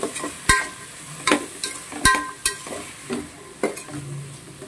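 Spatula scraping and knocking against the side of a pot while stirring chopped vegetables sautéing in oil, with a light sizzle underneath; about five sharp knocks.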